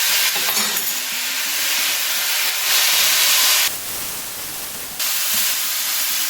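Rice and vegetables sizzling in a hot pan just after soy sauce has been poured in, a loud steady hiss of frying and steam. The hiss changes abruptly about four seconds in and again a second later.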